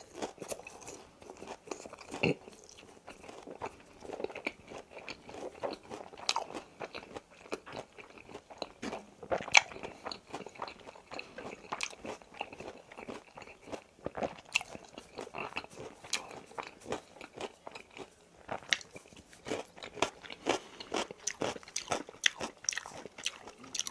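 Close-miked chewing and crunching of boneless fried chicken, with irregular crisp crackles from bite to bite.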